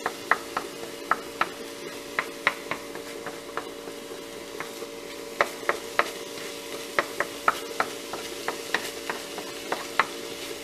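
Ground ham stirred in a nonstick frying pan, the utensil clicking against the pan irregularly several times a second, over a light sizzle. A steady low hum runs underneath.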